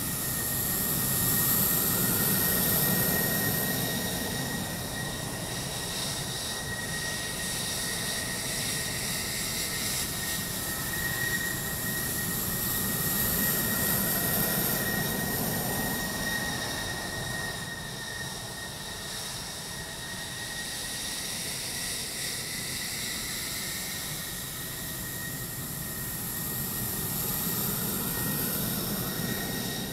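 F-16 fighter jet engines on a runway during takeoffs: a continuous jet rumble with a steady high turbine whine. It swells louder a couple of seconds in and again around the middle.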